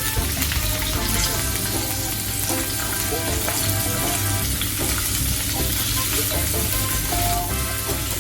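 Food frying in hot cooking oil in a pan, sizzling steadily.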